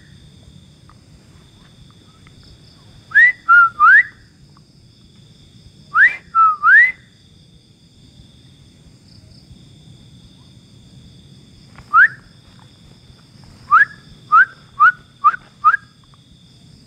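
Short, loud, rising whistled calls in groups: three notes, then three more, a single one, and five quicker notes near the end. The team takes them for owls calling back and forth from left and right.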